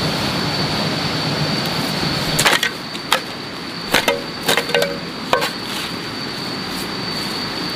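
About half a dozen sharp knocks, irregularly spaced over about three seconds in the middle, each with a brief ring. They sit over a steady noisy background with a constant high whine.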